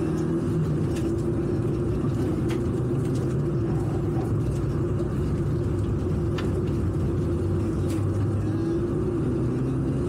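Rally car engine heard from inside the cabin, running steadily under load at speed on a dirt stage, its pitch drifting slightly and rising a little near the end. Several sharp knocks are heard along the way.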